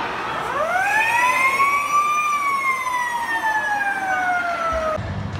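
Ice arena siren winding up in pitch for about two seconds, then slowly winding down, cut off suddenly near the end.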